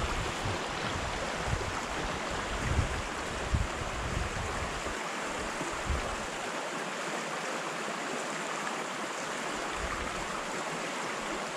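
Small freestone stream running over shallow riffles, a steady rush of water. Low rumbling and a few bumps on the microphone in the first half.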